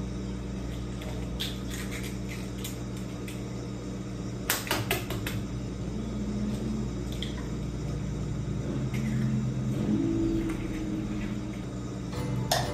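Eggs cracked one after another into a glass bowl: a few sharp shell cracks, the loudest about four to five seconds in and again near the end.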